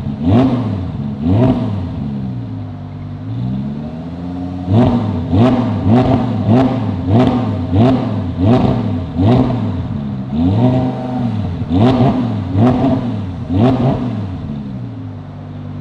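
Audi R8 V10 Performance's 5.2-litre V10 with a QuickSilver full exhaust being revved while parked: a string of quick throttle blips about every half second, with a couple of longer held revs in between, each blip topped by a sharp crack. It drops back to a steady idle near the end.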